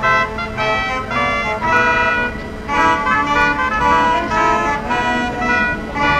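Horn-like tooting notes that keep changing pitch, several sounding together like a tune.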